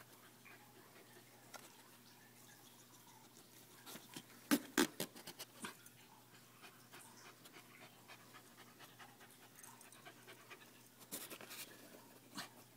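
A dog in labour making close mouth sounds: two short clusters of quick wet clicks and breaths, one about four and a half seconds in and another near the end. A faint steady hum runs underneath.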